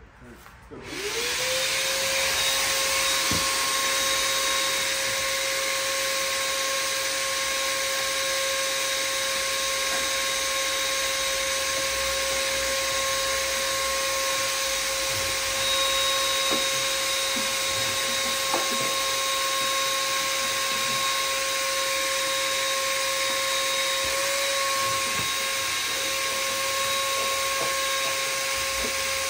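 Shop vacuum switched on, its motor spinning up within a second and then running steadily at one pitch.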